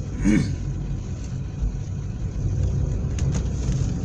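Car running at low speed, heard from inside the cabin as a steady low rumble. A brief vocal sound comes just after the start, and two faint ticks come near the end.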